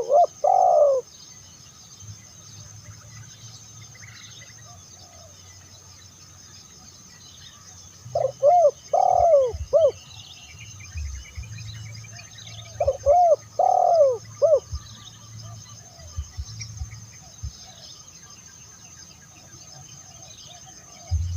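Spotted dove (tekukur) cooing: three phrases of several arched, hollow coos, one right at the start, one about eight seconds in and one about thirteen seconds in. Faint twittering of small birds and a steady high whine run underneath.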